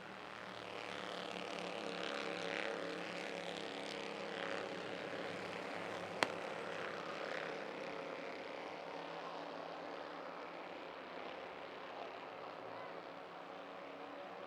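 A pack of Bandolero race cars lapping, their small engines droning together and swelling as the cars pass, then slowly fading. A single sharp click about six seconds in.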